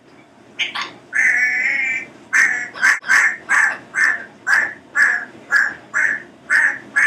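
Congo African grey parrot calling: two short calls, then a drawn-out pitched call about a second long, then a steady run of about eleven short, even calls, a little over two a second.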